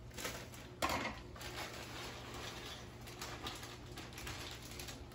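A cooking utensil clanking and scraping in a stainless steel pot as shredded coleslaw mix is stirred, with one sharp clank about a second in and softer scrapes and clatters after it.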